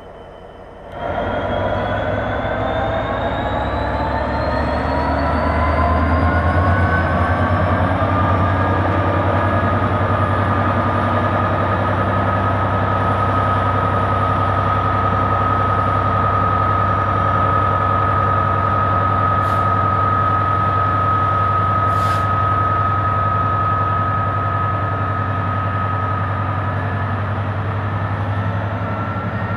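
Class 66 diesel-electric locomotive's two-stroke V12 diesel engine working under load as it pulls a freight train away, a deep steady rumble with a whine whose pitch rises over the first several seconds and then holds steady. Two sharp clicks sound about two-thirds of the way through.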